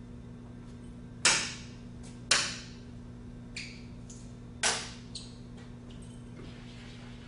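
Chalk on a chalkboard: three loud, sudden scratchy strokes, each fading within about half a second, with a couple of fainter ones between, over a steady low electrical hum.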